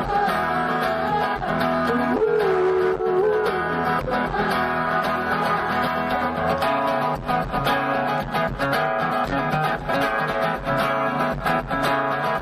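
Guitar band music playing: steady guitar strumming under a held note that bends up and back down about two seconds in.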